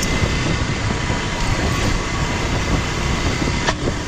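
Dual-sport motorcycle underway: steady wind rush and engine rumble, with a faint steady whine and one short click near the end.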